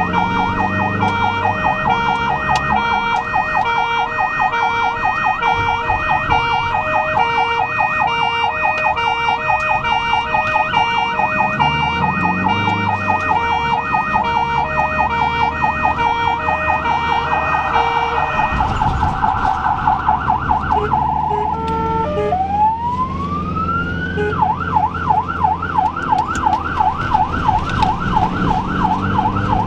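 Ambulance siren from the ambulance itself, with the engine running underneath. A fast warbling yelp runs for most of the time. About two-thirds through it breaks off briefly, restarts with a rising wail and settles back into a fast warble.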